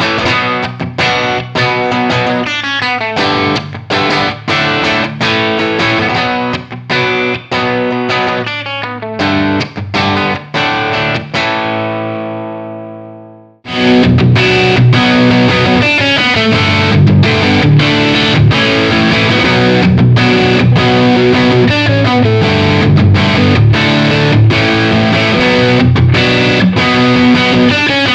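Electric guitar through a distorted amp: a Gibson Les Paul with PAF-style humbuckers playing a rhythmic chord riff. About nine seconds in, the riff ends on a held chord that rings out and fades away. Then, about halfway through, a heavier, denser riff starts abruptly.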